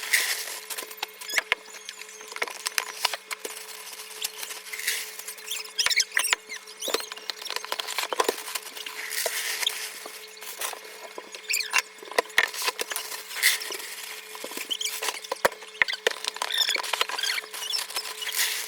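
Dry cereal being poured into storage containers: an irregular patter of pieces falling, with rustling of the packaging.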